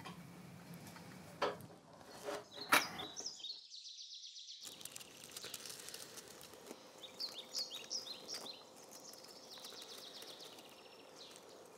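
A few sharp clicks and knocks over quiet room tone, then, after about a second of near silence, outdoor ambience with birds chirping, with a cluster of quick high chirps past the middle.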